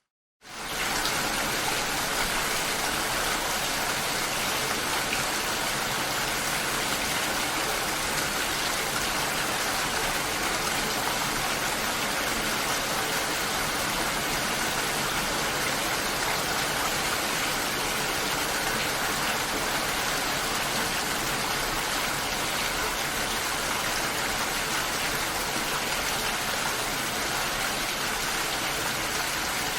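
Steady, dense rain hiss with no separate drops standing out. It comes in abruptly about half a second in, after a moment of silence.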